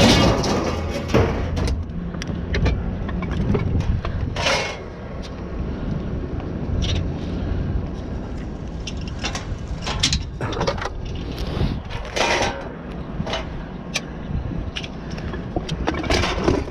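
A steady low engine rumble with scattered knocks and rattles, the loudest at the start, about four and a half seconds in, and near the end.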